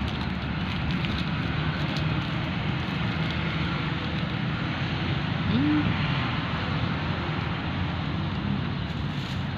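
Steady outdoor background noise of wind on the microphone and road traffic, with no distinct event.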